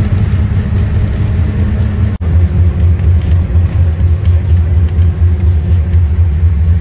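Loud, steady low rumble, with a brief drop-out about two seconds in.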